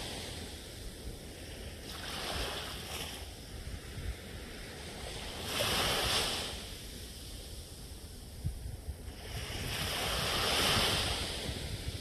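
Small waves breaking and washing up a sandy beach: the hiss of the surf swells and fades three times, roughly every four seconds.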